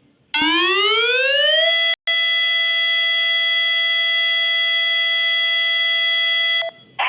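Tornado siren winding up from a low pitch to a steady high wail over about a second and a half. It holds that one tone for about five seconds, with a split-second dropout just after reaching full pitch, then drops and cuts off abruptly near the end.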